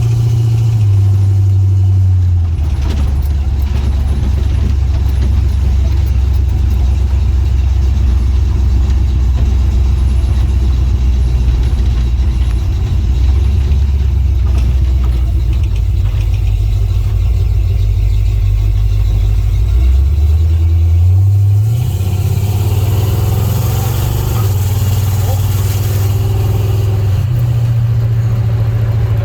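A 1950 GMC pickup truck's engine running on the road under way, with a loud low drone. The engine note drops twice in the first few seconds, holds low for a long stretch, then climbs in steps about twenty seconds in.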